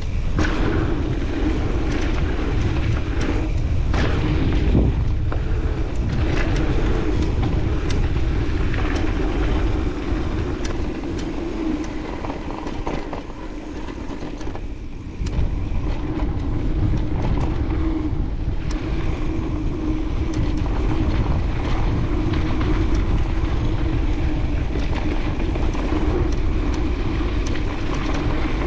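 Mountain bike riding down a dirt trail, heard from a chest-mounted action camera. Wind rumbles on the microphone over tyre noise, with frequent clicks and rattles of the bike over bumps and a steady buzz throughout. Everything eases for a few seconds around the middle.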